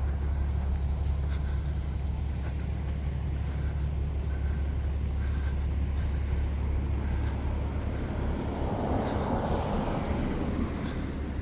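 Vehicle engine idling with a steady low rumble, while another vehicle passes, swelling and fading about nine seconds in.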